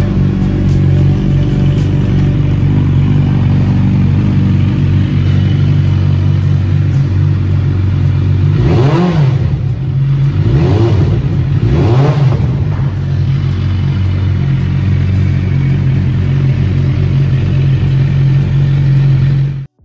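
Suzuki Bandit GSF 650's inline-four engine idling steadily through a Delkevic stubby carbon silencer. It is blipped three times in quick succession about halfway through, the revs rising and falling each time.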